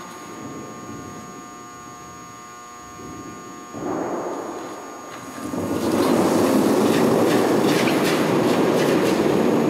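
Granite curling stone rumbling steadily as it slides down the pebbled ice after delivery, starting loud about six seconds in. Before that, a steady hum and a shorter scraping swell about four seconds in.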